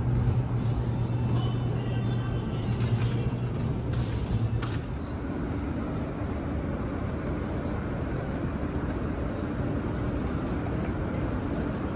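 Steady vehicle and city street traffic noise with a low engine hum, which gives way about five seconds in to a fainter, higher hum.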